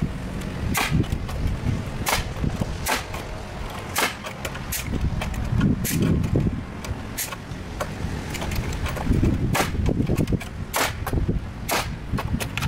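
Pneumatic nail gun firing a dozen or so shots at irregular intervals, each a sharp bang, driving nails into boards.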